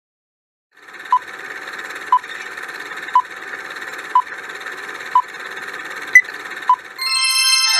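Quiz countdown-timer sound effect: a steady hiss with a short beep about once a second, one of them higher, then a bright chime near the end as time runs out.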